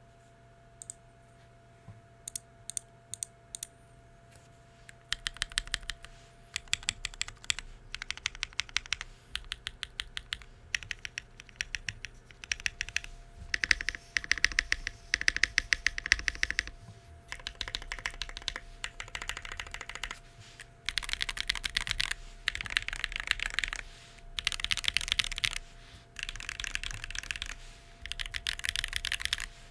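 Womier RD75 mechanical keyboard with Weikav Rouge Axis switches, a carbon-fibre plate, half gaskets, plate foam and Weikav keycaps being typed on. A few single keystrokes come first, then bursts of fast typing from about five seconds in, with short pauses between them.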